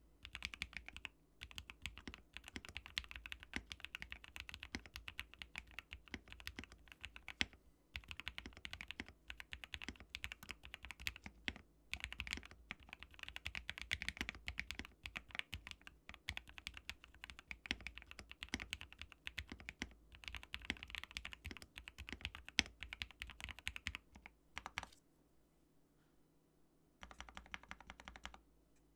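Typing on a GMMK Pro mechanical keyboard fitted with hand-lubed Gateron Black Ink V2 linear switches, a polycarbonate plate and PE foam: a fast, steady run of keystrokes with a few brief pauses and a gap of about two seconds near the end.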